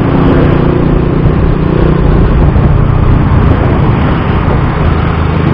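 Rusi Bantul motorcycle's engine running while riding, heard with heavy wind noise on an action camera's built-in microphone: a loud, steady low drone.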